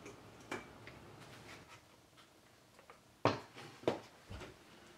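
Handling noises from an old box camera being taken apart: a few light clicks, then two sharp knocks about three and four seconds in, followed by a dull thump.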